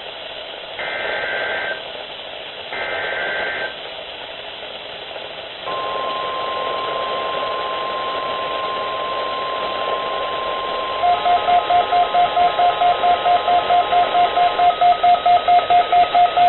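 NOAA Weather Radio Required Weekly Test through a weather radio's speaker over steady hiss: two short warbling SAME digital header bursts, then a steady 1050 Hz alert tone held for about nine seconds. About halfway through the tone, a pulsing electronic beep starts, about four beeps a second, and runs on after the tone stops.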